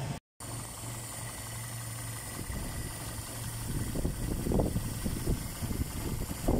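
Toyota 3A four-cylinder petrol engine idling steadily, with irregular low bumps over its hum in the second half. A brief dropout of sound comes just after the start.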